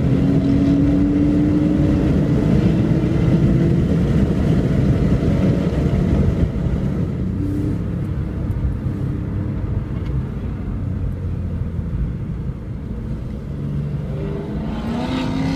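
Holden HSV GTS V8 ahead and the following car's own running, mixed with road noise, heard from on board the following car. The engine note climbs slowly under acceleration for the first few seconds, then settles into a quieter, rougher drone. Near the end it rises again as the car accelerates.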